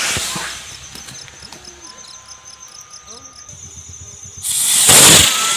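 Homemade girandola flying-spinner firework hissing as its fountain burns, the hiss fading over the first second as it climbs away. A second loud rush of hiss comes about four and a half seconds in and cuts off near the end. Crickets chirp steadily, about five times a second, in the quieter stretch between.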